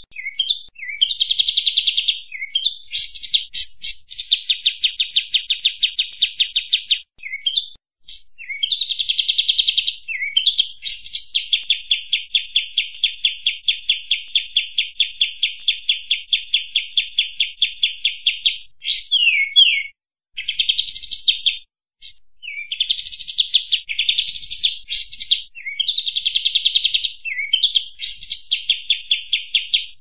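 Kapas tembak bulbul singing: long, fast chattering runs of repeated notes broken by short, sharp whistled chirps and brief pauses.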